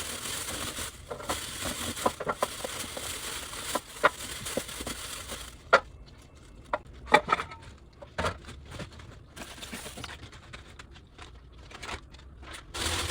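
Crinkling and rustling for about five seconds, then scattered sharp clicks and crackles, with a short burst of rustling near the end.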